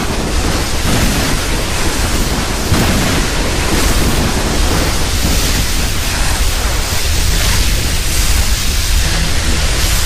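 Monster-movie sound effect for King Ghidorah: a steady, loud rushing noise with a deep rumble underneath, like a long blast or storm, with no cries or pitched calls in it.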